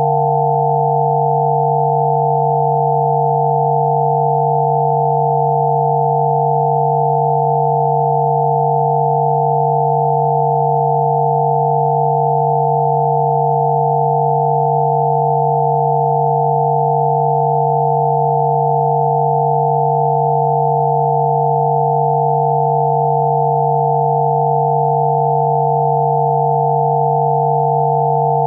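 Synthesized 'healing frequency' tone track: several pure electronic tones, one low and a few higher, held together without any change in pitch or level.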